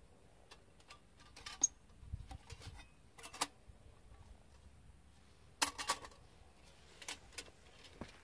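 Small folding sheet-metal wood stove being unfolded and put together by hand. Its thin steel panels and legs make a series of sharp metal clicks and clinks, with a quick cluster just past halfway through.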